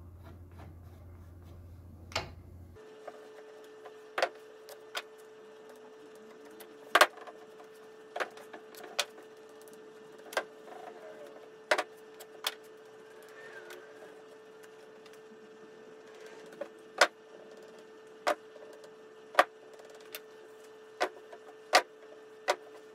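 Scattered sharp clicks and taps of hand work at a wooden picture frame's corner on a workbench, over a steady hum that starts about three seconds in.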